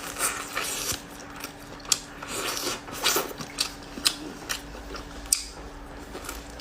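Someone eating braised pork ribs close to the microphone: chewing and lip smacking, with a string of short, sharp, irregular clicks.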